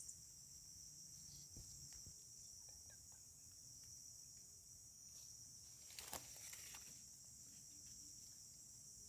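Faint, steady, high-pitched insect chorus, with a brief sharp click about six seconds in.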